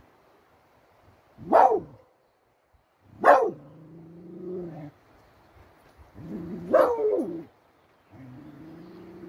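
Beagle barking: three loud single barks about two seconds apart, with lower, drawn-out pitched calls between them and a long low call near the end.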